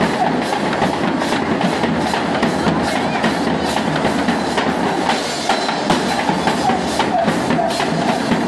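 Chinchinero's back-mounted bass drum (bomba) and cymbals beaten in a fast, steady dance rhythm of sharp strikes, about three a second, over a murmuring crowd.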